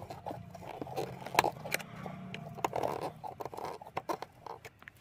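Screwdriver turning a speaker mounting screw into its nut through a wooden speaker box: irregular sharp clicks and short scrapes of metal on metal and wood. A steady low hum underneath fades out near the end.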